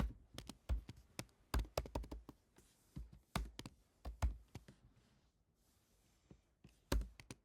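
Typing on a computer keyboard: irregular keystrokes for the first few seconds, a pause of about two seconds, then a few more keys near the end.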